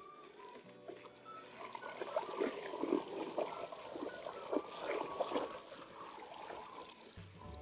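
Mountain e-bike tyres sloshing and splashing through a wide, muddy puddle, in irregular splashes that build up about a second and a half in and thin out near the end as the bike rolls out onto gravel.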